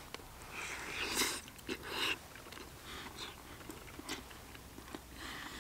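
A person eating a forkful of stir-fry noodles: close mouth sounds of biting and chewing, with two louder breathy bursts about one and two seconds in and small wet clicks after.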